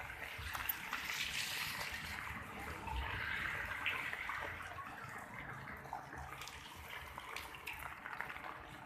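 Rain falling and splashing on hard surfaces: a steady hiss with scattered small drip clicks, swelling for a few seconds about a second in.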